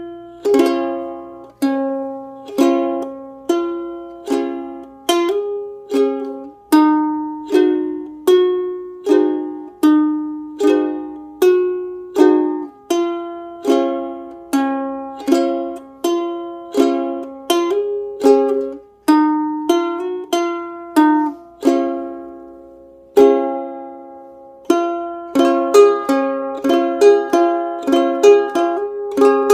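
Solo ukulele played clawhammer (frailing) style: struck strings ringing in a steady bouncing rhythm. It thins to a few single strums a little after the middle, then comes back busier and denser near the end.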